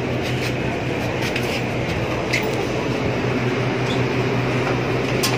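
Steady hum and air rush of running split-type air-conditioner outdoor units, with a low droning tone throughout. A few light footsteps on concrete click over it.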